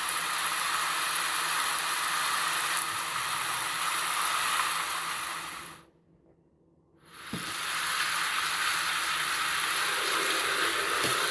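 Steady rain, an even hiss, that fades out about six seconds in, drops to near silence for about a second, then fades back in.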